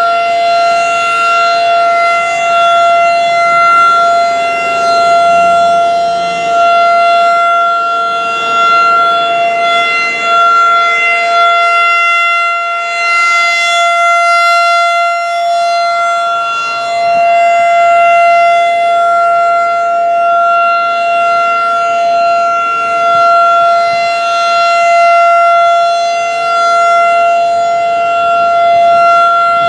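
Federal Signal 2001-DC rotating outdoor warning siren sounding a steady, unbroken alert tone at close range, very loud, its loudness swelling and dipping gently as the rotor turns. A fainter, lower steady tone runs underneath. The nearly 30-year-old siren sounds healthy.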